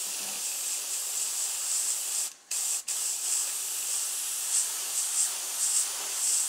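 Airbrush spraying white paint onto a fish mount: a steady high hiss that stops briefly about two and a half seconds in, then resumes and swells slightly a few times near the end.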